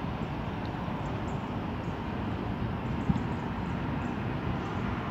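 Steady rumble of an R62A subway train running along a steel elevated structure, with a single knock about three seconds in.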